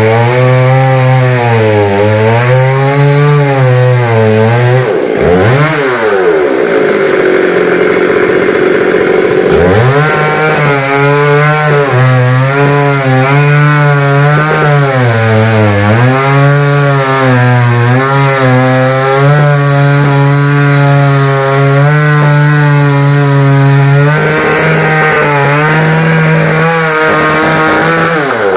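Two-stroke chainsaw cutting into a tree trunk at high revs, its pitch wavering as the chain bogs and frees in the wood. About five seconds in the engine drops back almost to idle, then revs up again a few seconds later and cuts steadily on, falling off near the end as the throttle is released.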